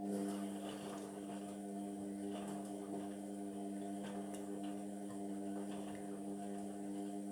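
Indesit washing machine starting up a steady electrical hum that switches on suddenly and holds an even pitch, with faint clicks over it.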